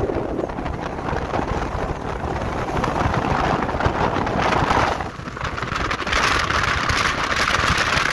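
Wind and road noise from a moving car, a steady low rumble with wind hiss. About six seconds in, a loud, high-pitched hiss sets in on top.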